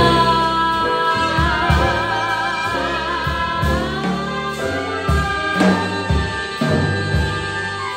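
Small jazz combo playing a slow ballad: voice, trumpet and saxophone hold long notes with vibrato over electric bass and a drum kit. The chord changes a little under four seconds in, and a drum-and-cymbal hit lands right at the start.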